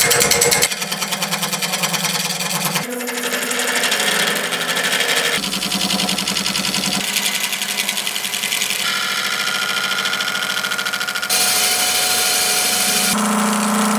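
Robust wood lathe spinning a cast cork-and-resin blank while a gouge cuts into it, a steady motor hum under the scraping of the cut. The pitch and tone of the cut change abruptly every couple of seconds.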